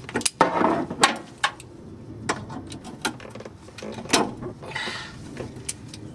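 Scattered sharp clicks and light knocks with short scraping, as a broken plastic retaining clip is worked out of a fuel-line fitting on a fuel filter.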